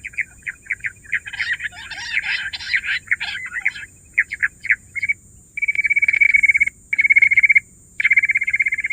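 Bush quail calling: a run of separate chirps and a dense chattering burst, then, from about halfway, three long, rapid trills.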